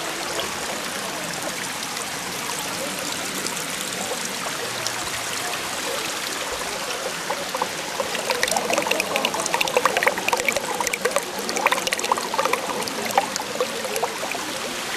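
Small stream running over rocks: a steady rush of water that, about halfway in, grows louder and choppier with quick splashes.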